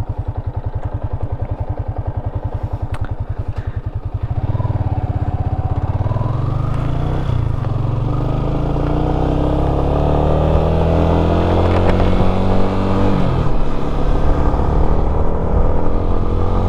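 Yamaha Sniper 155's single-cylinder engine idling with a fast, even pulse, then revving as the motorcycle pulls away about four seconds in. The engine note climbs steadily, drops once near thirteen seconds in at an upshift, and climbs again.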